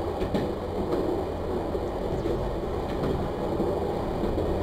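Train running along the track: a steady rumble with a few faint clicks of the wheels on the rails.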